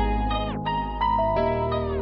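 Background music with plucked-string notes over a steady bass, some notes bending downward in pitch.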